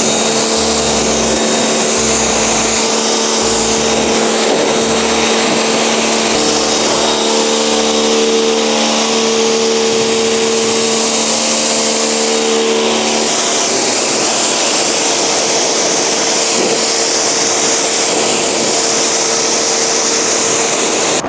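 Pressure washer running, a steady motor hum under the hiss of its water spray, during a car's prep wash.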